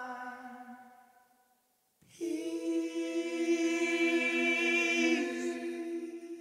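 Soundtrack vocal music: long held sung notes in a cappella style. A sustained note fades away, and after a brief gap a layered chord of several voices enters about two seconds in and shifts near the end.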